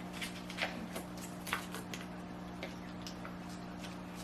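Faint, irregular small clicks and rustles as a plastic toy and its packaging are handled and unwrapped, over a steady low hum.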